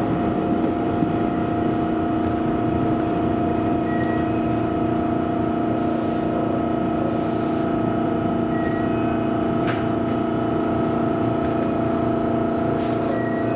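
JR Kyushu 813 series electric train running slowly into a station: a steady whine of several fixed pitches from its VVVF inverter-driven traction motors, over the rumble of the wheels on the rails.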